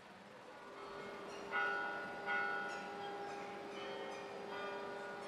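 Church bells ringing, several strokes in turn, each ringing on and fading; the sound fades in at the start, and the two loudest strokes come about a second and a half and two seconds in.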